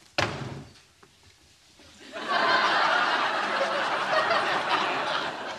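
A short sharp sound just after the start, then a studio audience laughing together from about two seconds in.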